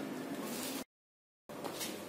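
Low steady background hiss and hum of a workshop, broken by a moment of dead silence where the video is cut.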